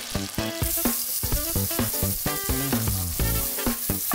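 A pat of butter melting and sizzling in a hot frying pan that still holds the meatballs' browned drippings, with a steady hiss that comes in about half a second in. Near the end a spatula stirs it. Background music plays throughout.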